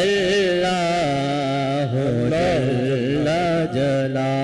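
A man singing an Urdu hamd into a microphone, without words, on long drawn-out wavering notes with a melismatic melody. A steady low tone holds underneath the voice.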